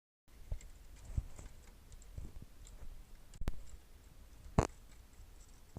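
A few scattered light clicks and taps, the loudest about four and a half seconds in.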